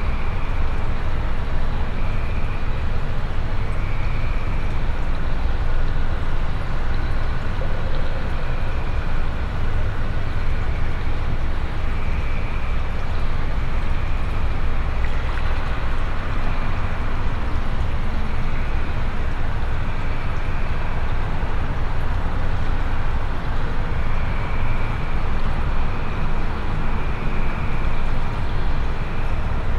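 Dense, steady low rumbling drone of experimental noise music, with faint short high blips recurring every second or two.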